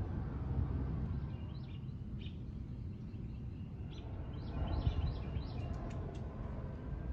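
Birds chirping in short, scattered calls over a steady low rumble, with a few sharp clicks near the end.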